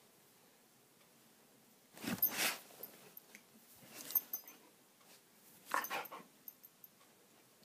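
Japanese Akita making three short breathy sounds close up while playing with kittens, about two, four and six seconds in.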